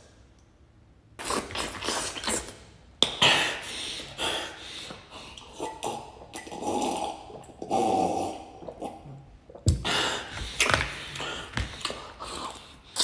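A man's exaggerated eating and drinking noises: gulping from a glass, then wet slurping and smacking over a tray of spaghetti, in irregular bursts with a few sharp knocks near the end.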